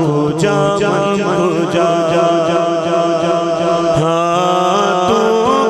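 A man singing a naat through a PA system, drawing out long wavering notes without clear words, over a steady low hum.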